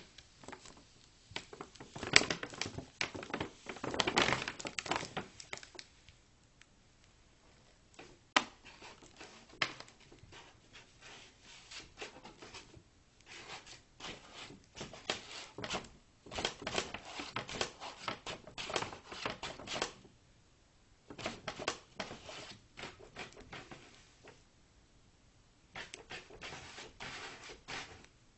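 A bag rustling and crinkling as a cat scrabbles and moves about in it, in irregular bouts with short pauses between, and one sharp click in a lull.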